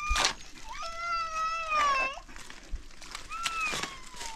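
Three high-pitched, drawn-out animal cries, each sliding in pitch; the longest lasts about a second and a half and wavers at its end. A couple of short, sharp knocks come between them.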